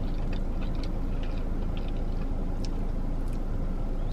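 Steady low rumble of a running car heard inside its cabin, with a few faint clicks and crinkles from a plastic sauce cup being handled.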